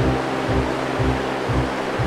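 Background music with a steady beat, about two beats a second, and held notes.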